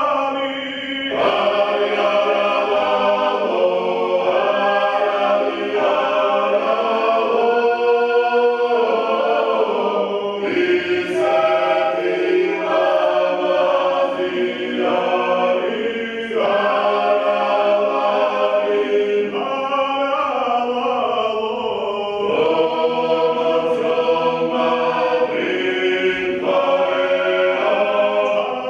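Georgian folk song sung by a choir in several voice parts, in long held phrases that pause briefly every five or six seconds.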